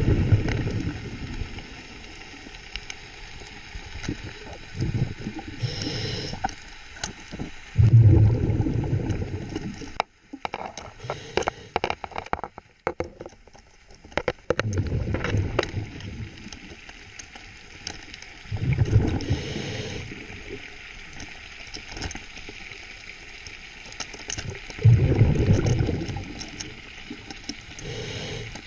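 A diver's exhaled breath bubbling out underwater in loud gurgling bursts every few seconds, with scattered clicks and knocks in between.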